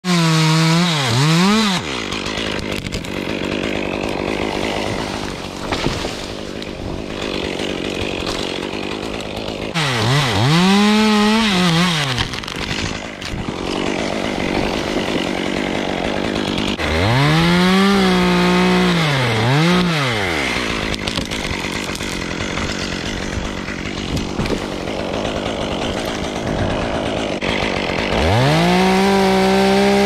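Stihl top-handle two-stroke chainsaw revving up to full throttle and back down five times. It idles between the bursts, which come in quick succession twice near the middle, while it cuts through the tree's trunk and limbs.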